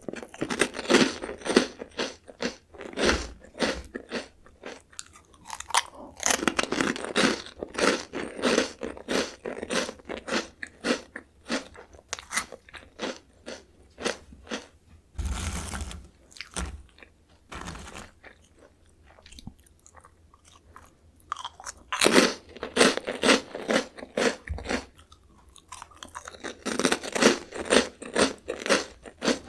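Close-miked crunching and chewing of Jagalchi, a crispy seafood-flavoured Korean snack, in rapid runs of crunchy bites. A quieter stretch comes in the middle before the crunching picks up again.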